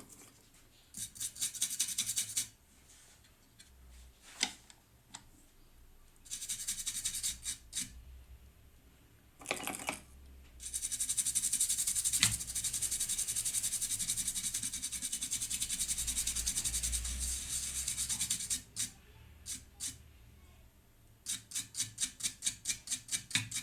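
Fast back-and-forth scrubbing of old solder off a TV power board's metal heatsink, in several bursts: a long steady run of about eight seconds in the middle, and a quick run of about four strokes a second near the end.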